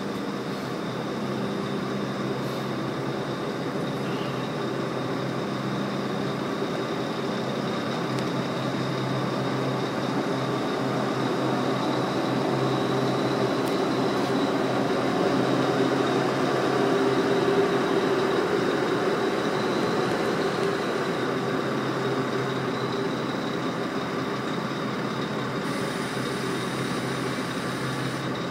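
Steady machinery and ventilation drone in a ferry's enclosed steel vehicle deck: a low hum with a faint high whine above it, swelling a little about halfway through and then easing.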